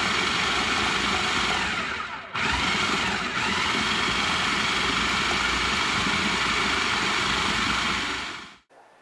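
Cuisinart Elemental 11 food processor running, its stainless steel blade chopping cranberries, oranges and apples into relish as sugar is added. The motor stops briefly about two seconds in, spins back up, then dies away near the end.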